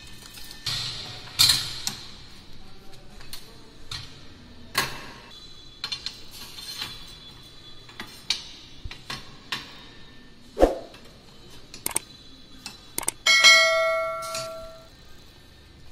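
Irregular metallic clanks and clinks as steel wire and parts of a barbed wire machine are handled. Near the end a bell-like chime rings out for about a second and a half, coming with a subscribe-button animation.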